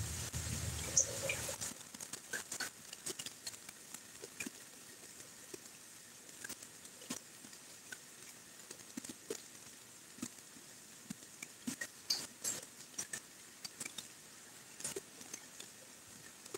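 Raindrops pattering in scattered, irregular ticks over a faint hiss of light rain. A low rumble stops abruptly about a second and a half in.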